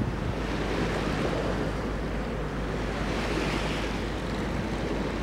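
Wind buffeting the microphone over the wash of water from a boat under way, a steady rushing noise with a rumbling low end that swells briefly about three and a half seconds in.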